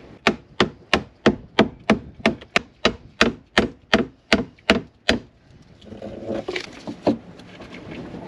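Hammer blows on wood: a fast, even run of about fifteen strikes, about three a second, stopping about five seconds in. Then scraping with a couple of lighter knocks.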